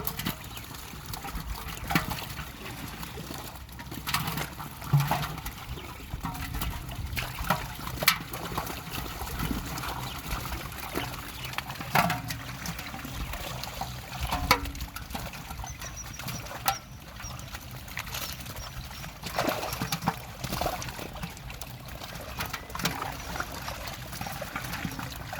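Pond water splashing and trickling, with sharper irregular splashes every second or two.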